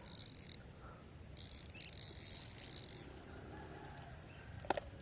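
A fishing reel being cranked, a faint whirring in two spells of a second or so each, with a single sharp click near the end.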